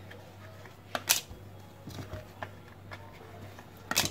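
Hands handling and dividing a lump of dough on a granite countertop: a couple of sharp taps about a second in and another near the end, over a low steady hum.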